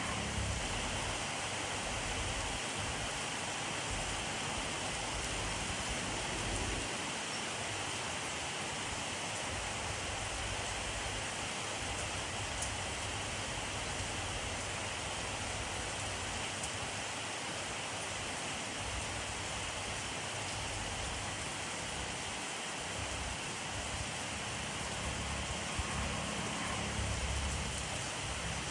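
Steady rainfall, an even hiss of drops on surfaces, with a low rumble underneath that swells and fades.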